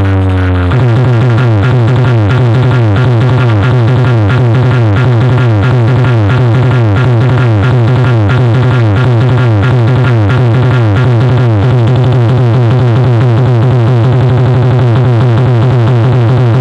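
A wall of horn speakers and bass cabinets in a DJ sound-competition rig plays a loud electronic remix. A slow falling synth sweep gives way about a second in to fast, repeating falling synth figures and a rapid beat over a steady, heavy bass.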